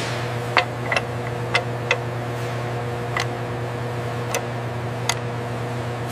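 About seven sharp metallic clicks at irregular intervals, the first the loudest, as metal rifle receiver parts are fitted together by hand, over a steady low machine hum.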